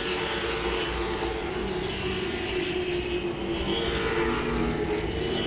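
V8 engines of late model stock cars racing around a short oval, a steady drone with no rise or fall.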